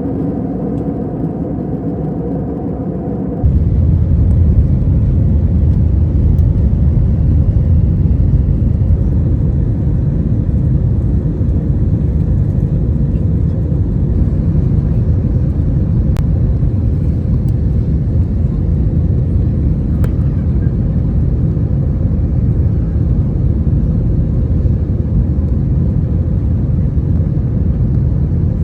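Airbus A321 cabin noise: a steady low rumble of the jet engines and airflow, with a few faint engine tones at first, stepping suddenly louder a few seconds in and then holding steady.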